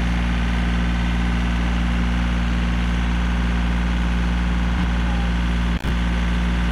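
Yanmar compact tractor's diesel engine running at a steady speed, an even low hum, with a very brief drop-out near the end.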